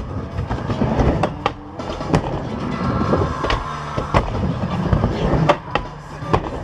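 Skateboard wheels rolling on a wooden mini halfpipe, with a series of sharp clacks as the trucks and tail strike the coping in stalls and reverts.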